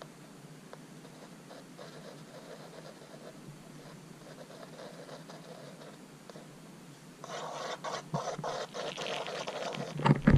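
A screw used as a stir stick scraping and tapping in a small plastic cup while mixing acrylic paint. It is faint at first, then from about seven seconds in turns to a louder, quick scratching with many small clicks.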